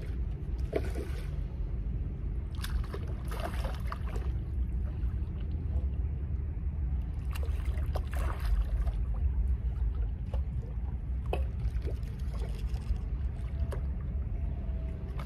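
Water splashing in several short bursts as a hooked wiper (hybrid striped bass) is played close in toward a landing net, over a steady low rumble of wind on the microphone.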